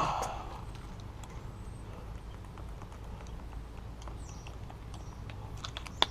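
Hands working a sheet of Dynamat Extreme: a short rustle and knock at the start, a few faint clicks and taps, and a sharp click near the end, over a low steady hum.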